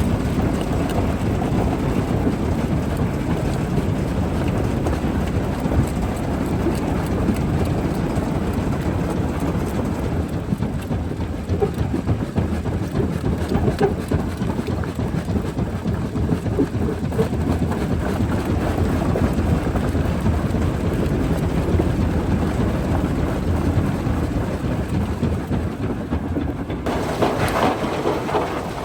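Jaw rock crusher running under load: a continuous heavy rumble of rock being crushed, with a few scattered knocks. Near the end the sound changes abruptly and becomes brighter.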